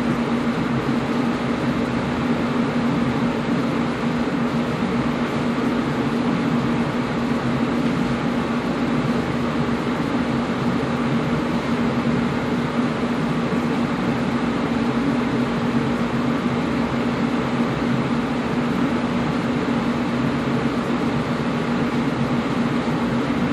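Air conditioner running steadily: a constant rush of air with a steady low hum under it.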